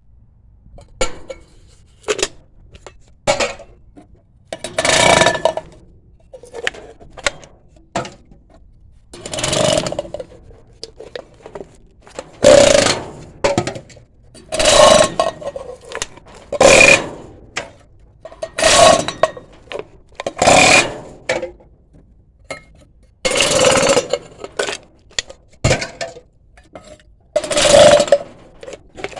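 Metal cans being crushed one after another: loud crunching crushes, about one every two seconds through the middle, with smaller clicks and clinks of metal between them.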